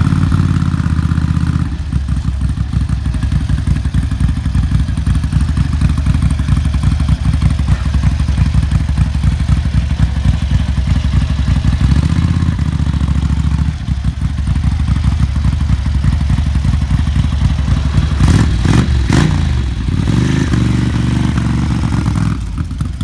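Ducati 900 MHR's bevel-drive V-twin running through round Conti silencers, with a steady idle and a mechanical clatter. It is revved briefly a little before the end.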